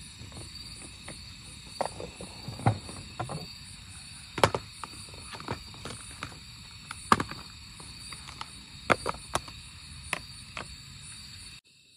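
Crickets chirring steadily in the background while cooking gear is handled on a camp table: a string of sharp clicks and knocks from a metal pan, gas stove and plastic containers, the loudest about four and a half and seven seconds in. The sound cuts off abruptly near the end.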